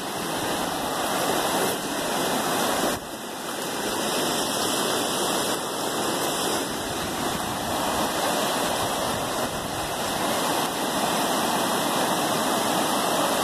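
A creek in flash flood, its high water rushing past in a steady, loud wash of noise, with a brief dip about three seconds in.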